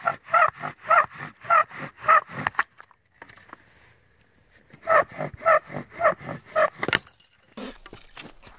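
Bow drill spindle squealing against a smoking wooden hearth board, one squeal per bow stroke at about three a second. The strokes stop for about two seconds partway through, then run again; near the end softer scraping and clicks take over.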